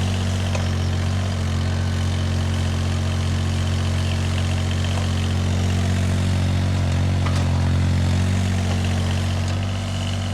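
An engine running steadily at idle, a deep, even hum that holds constant throughout.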